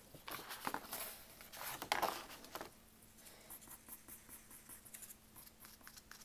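Coloured pencil scratching on paper, louder and busier for the first couple of seconds, then lighter short strokes.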